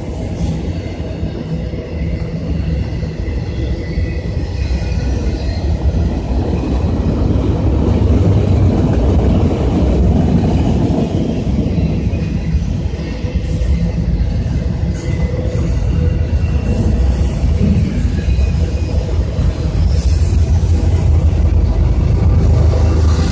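Freight train rolling past: a steady rumble of cars and wheels on the rails, growing louder over the first several seconds, with faint wheel squeal near the start.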